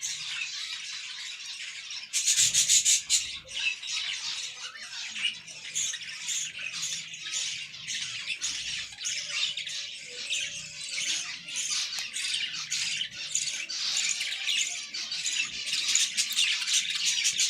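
A colony of budgerigars chattering and chirping, many birds at once, with a louder run of rapid chirps about two seconds in.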